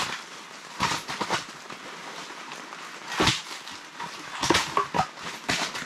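Split firewood pieces knocking against each other as an armload is set down and stacked: a series of short wooden clunks, the loudest about three seconds in and several more close together near the end.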